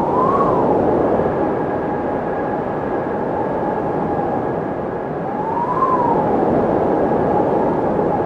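Windmill turning in the wind: a steady rushing and hum, with a squeal that rises and falls in pitch twice, about five and a half seconds apart, each time with a swell in loudness.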